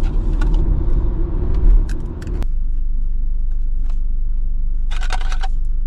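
Low rumble of a car heard inside the cabin, with scattered small clicks. About two and a half seconds in, the rumble cuts off abruptly, leaving a steady low hum, and a brief rustle comes near the end.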